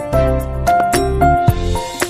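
Background music: an upbeat, bell-like melody over a steady bass and beat.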